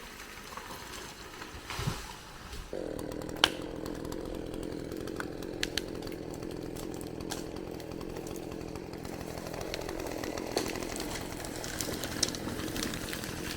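Chainsaw cutting into a tree during felling: it starts abruptly about three seconds in and then runs at a steady pitch, with a sharp click or crack soon after it starts.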